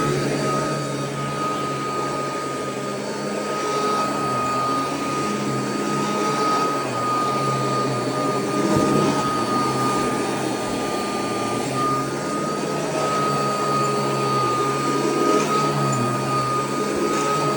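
Royal vacuum cleaner running on carpet: a steady high motor whine over rushing airflow, with a few faint clicks as debris is sucked up.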